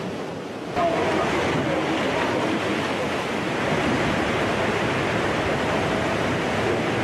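Tsunami floodwater rushing and churning, a steady, dense noise of moving water that jumps louder about a second in.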